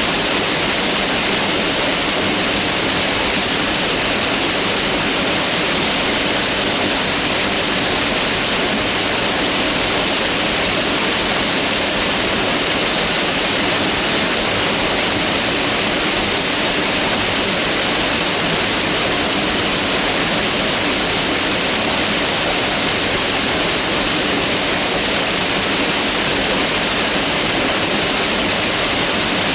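Mountain river rushing steadily over rocks, a constant dense wash of water noise.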